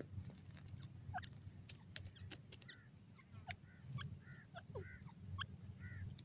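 Grey francolin giving several soft clucking notes, most in the second half, with scattered sharp clicks and a few short falling chirps over a low rumble.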